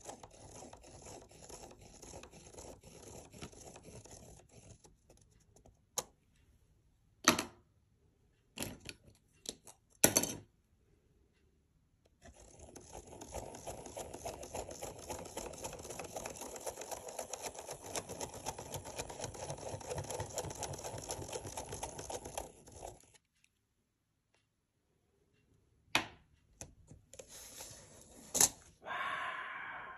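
A felt-tip pen drawn round and round in a plastic Spirograph gear inside a ring template on paper: a steady scratchy rubbing of pen tip, paper and meshing plastic teeth. It breaks off for a few sharp clacks as the pen is changed, then runs on for about ten seconds and stops. A few knocks and a brief scrape follow near the end.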